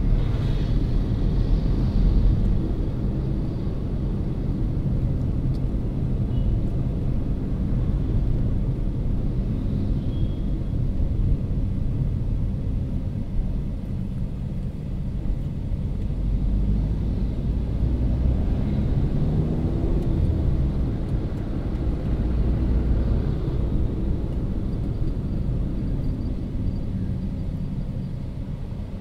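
Car driving on an open road, heard from inside the cabin: a steady low rumble of engine and tyre noise.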